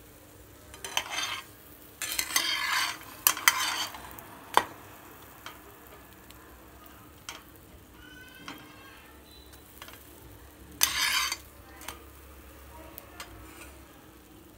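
A steel spatula scraping and tapping in a frying pan as a slice of bread shallow-fries in oil, with a low sizzle underneath. The scrapes come in short bursts about one, two to four, and eleven seconds in, with sharp taps between them.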